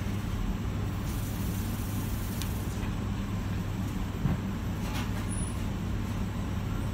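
Steady low hum of a laboratory microbiological safety cabinet's extraction fan running, with a light tap about four seconds in.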